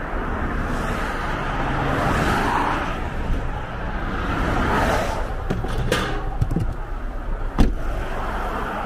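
Passing expressway traffic as a steady rush that swells twice, with a few light knocks and then one sharp thump near the end as a car's rear hatch is shut.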